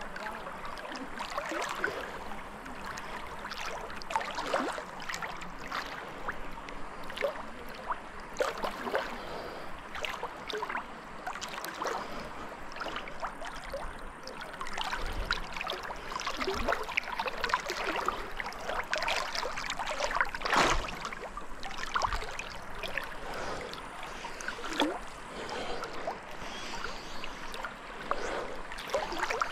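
Moving water on the Pirita River splashing and gurgling, with a scatter of small irregular splashes and one louder splash about two-thirds of the way in.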